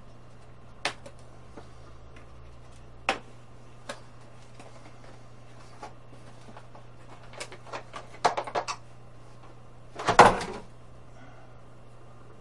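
Scattered knocks and clicks of hand tools being picked up and handled on a workbench, with a quick run of clicks about eight seconds in and a louder rattling clatter about ten seconds in, over a faint steady low hum.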